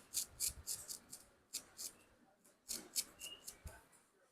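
A barber's razor scraping across a scalp during a head shave, in a run of short, crisp strokes, several a second, with brief pauses between groups.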